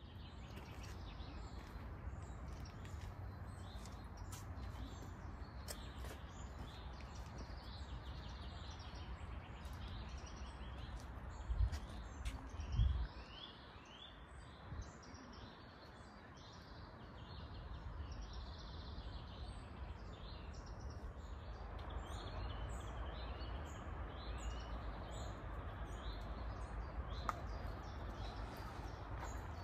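Several small songbirds singing and chirping in quick short phrases, over a steady low outdoor rumble, with a few louder low bumps about twelve seconds in.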